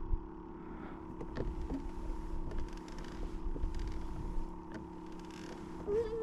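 Steady electric hum of a kayak's trolling motor, with a low rumble of water as the fishing kayak turns. A sharp knock comes right at the start.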